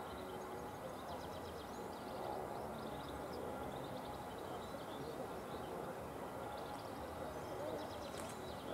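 Small birds chirping in short bursts on and off, over a steady low outdoor background noise.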